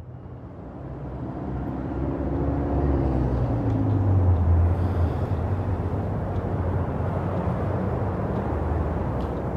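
A low rumbling noise that swells over the first four seconds and then holds steady, with a faint falling tone above it near the start.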